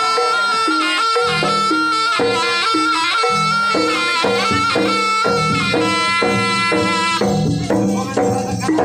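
Javanese jaranan ensemble music: a shrill reed trumpet (slompret) holds and ornaments a melody over drums and repeating low gong-chime notes.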